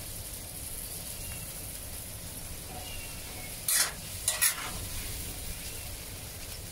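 Spatula stirring beef brisket and potatoes in curry sauce in a wok over high heat, the sauce hissing steadily in the hot pan. About halfway through, two loud scrapes of the spatula against the wok.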